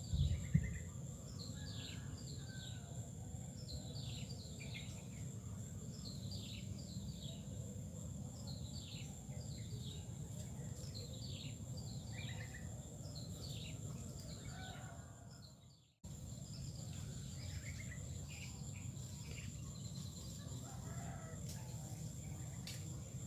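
Wild bird calling over and over in short, falling chirps, over a steady high insect drone and a low rumble of background noise. A brief thump comes at the very start. The sound dips out for a moment about two-thirds of the way through, then resumes unchanged.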